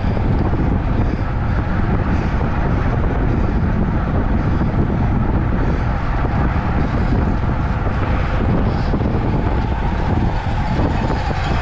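Steady wind rush buffeting an action camera's microphone on a bicycle moving at racing speed.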